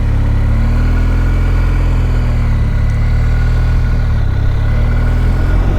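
BMW R 1250 GS Adventure's boxer-twin engine running steadily, its pitch holding fairly even with slight rises and dips.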